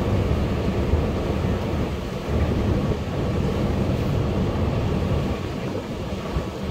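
Ferry's engines running with a steady low drone, mixed with wind buffeting the microphone.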